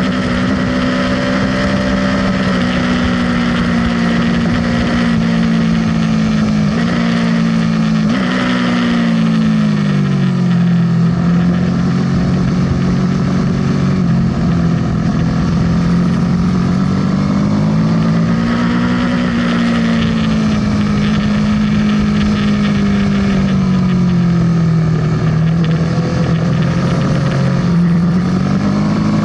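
Aprilia sport bike's engine running hard under the onboard camera, with steady wind rush. The engine pitch holds for the first several seconds, drops about eight to eleven seconds in, rises again and falls off in the second half, then climbs near the end as the throttle is opened and closed.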